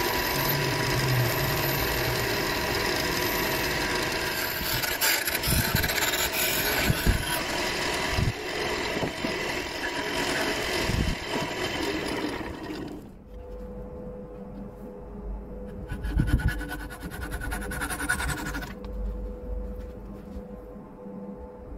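Wood lathe spinning a small turned spindle while it is sanded with sandpaper and then cut with a parting tool, a steady rasping hiss of abrasive and tool on wood. The noise stops abruptly about 13 seconds in, leaving a faint hum, and a shorter rasping stretch with a knock comes a few seconds later.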